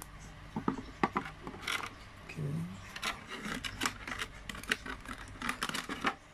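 Handling noises: a string of small clicks, taps and scraping rustles as a metal cigarette holder and its white plastic packaging tray are handled and taken apart.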